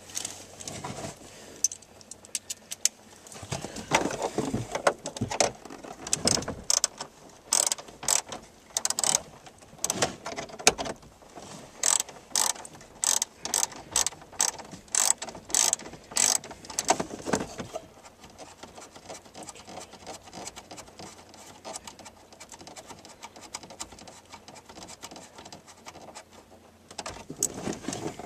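Ratchet wrench clicking in short strokes while working under a car dash, with rustling and knocks from handling. The sharp clicks come about one and a half a second through the middle, stop for a while, and start again near the end.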